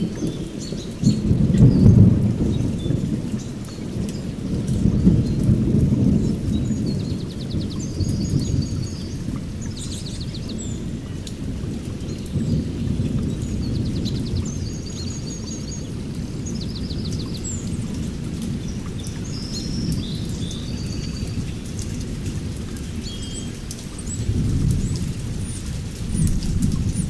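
Small birds chirping and giving short rapid trills over a low, rolling rumble that swells twice in the first few seconds and again near the end.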